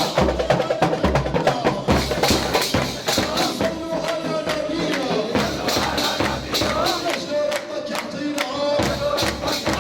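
Music with a steady percussive beat and a held melody line; the low beat drops out for a moment near the end.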